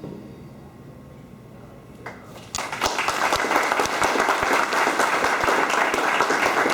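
An audience breaks into applause about two and a half seconds in, after a quiet pause as the dance music ends; many hands clapping at a steady level.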